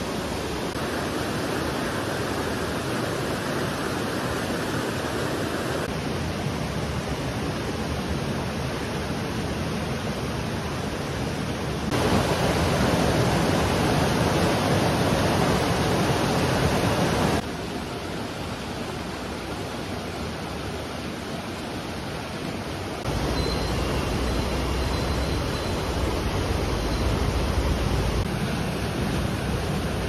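Rushing water of a mountain stream and waterfall, a steady roar across several short clips, changing level at each cut and loudest in the middle. A low rumble joins it for a few seconds near the end.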